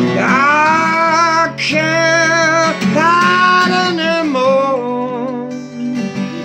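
A man singing long, drawn-out notes with a waver in them, over a strummed acoustic guitar.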